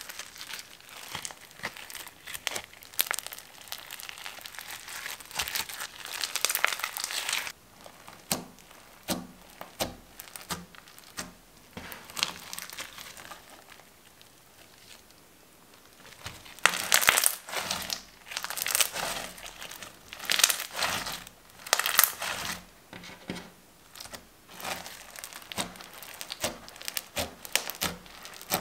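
Clear glitter slime packed with foam beads being squished, stretched and pressed by hand, giving irregular crunchy crackling and popping. It goes quieter for a few seconds about halfway through, then crackles loudest for several seconds after.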